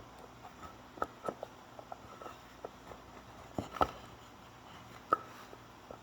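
Scattered light clicks and knocks at irregular intervals, like small objects being handled and set down, with the loudest knocks a little under four seconds in and again about five seconds in.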